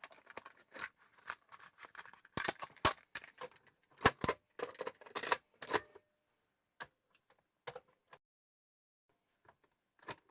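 Rapid clicking and rattling of small hard objects for about six seconds, then a few scattered single clicks.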